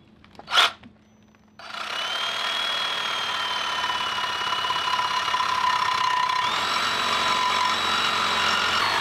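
Electric power tool motor running under load for about seven seconds, a steady whine that sags a little in pitch and then picks up again, starting and stopping abruptly.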